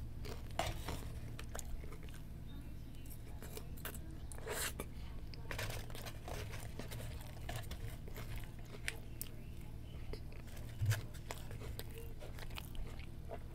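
A person chewing a mouthful of chicken bacon Swiss sandwich close to the microphone: soft scattered mouth clicks and crunches over a steady low hum.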